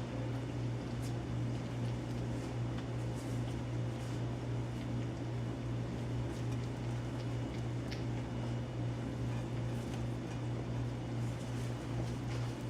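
Steady low machine hum, with a few faint clicks and squeaks over it.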